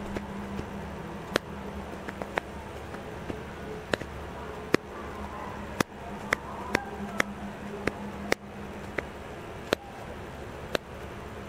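Detented command dials on a camera being turned to change shutter speed and ISO: a dozen or more sharp single clicks at irregular intervals, each one a step of the wheel. Beneath them runs a steady low hum.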